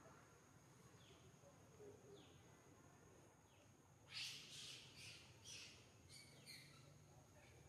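Faint, shrill animal calls: a few soft falling chirps, then from about halfway a quick series of about five louder high-pitched squeals, over a faint steady high tone.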